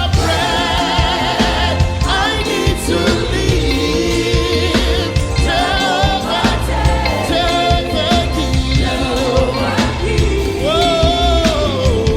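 Church choir singing a gospel worship song, with a lead voice wavering in vibrato above the choir over a heavy, steady bass accompaniment.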